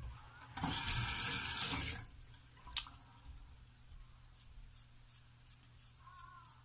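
Water from a tap running into a bathroom sink for about a second and a half, then shutting off. A single sharp click follows, then a run of faint, light ticks.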